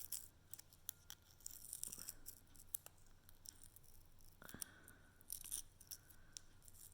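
Faint handling noises from small toiletry packaging: scattered light clicks and brief crinkly rustles, as of a cap or wrapping being opened.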